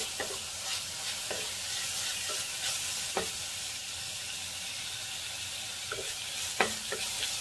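Garlic, ginger and dried chillies sizzling in hot oil in a clay pot while being stirred with a wooden spatula, which scrapes and knocks against the pot every so often, one sharper knock about six and a half seconds in. The aromatics are being fried until fragrant.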